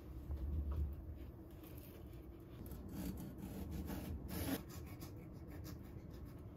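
Kitchen knife slicing a tomato on a cutting board: a series of short cuts and taps of the blade on the board, strongest about four seconds in, after a low rumble of handling in the first second.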